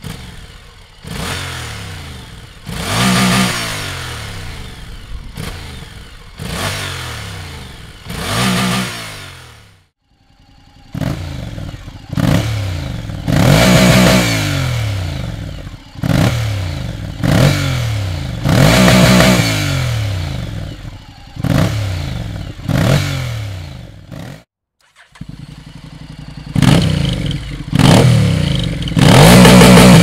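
Honda NC750X parallel-twin engine revved from idle in a series of short throttle blips, each rising and falling back. It is heard through three exhausts in turn: the stock silencer, then a Dominator HP1 aftermarket silencer, then a louder Dominator GP1 silencer. There are two brief breaks where one exhaust gives way to the next.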